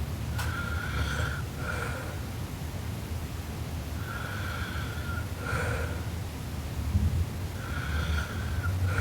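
A sleeping girl snoring: a constant low rumble, with a high steady whistle-like tone on each breath in two parts, a longer one then a shorter one, about one breath every four seconds.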